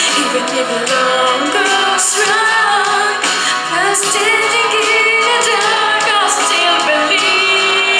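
A young woman singing a song in English into a handheld microphone, ending on a long held note.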